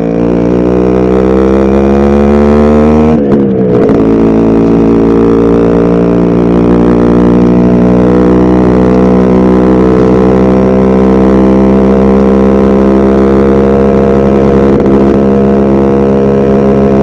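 Yamaha RX100's two-stroke single-cylinder engine under way, climbing in pitch as it accelerates. There is a quick upshift about three seconds in, and the engine then holds a steady cruising note.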